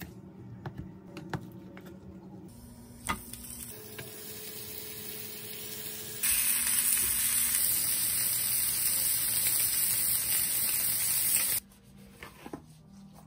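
Slices of canned luncheon meat sizzling as they fry in a nonstick pan. The sizzle is soft at first, turns loud about six seconds in, then cuts off abruptly near the end.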